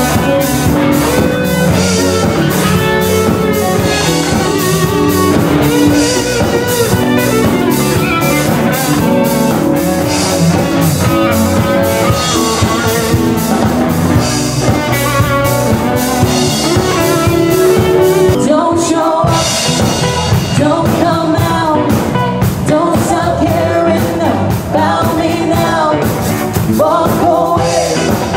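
Rock band music with a steady drum-kit beat: electric guitar and a woman singing.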